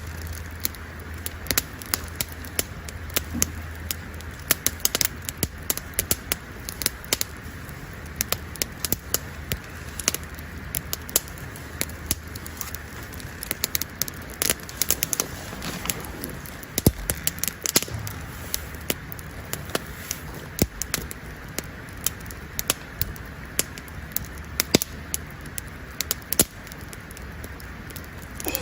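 Wood campfire crackling, with irregular sharp pops and snaps several times a second.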